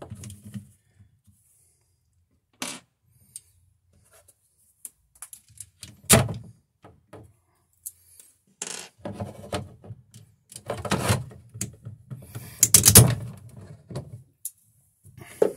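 Screws being taken out of a GFI receptacle and the receptacle and its plastic extension frame being handled: scattered clicks, small metal rattles and knocks, with a few louder clunks in the second half.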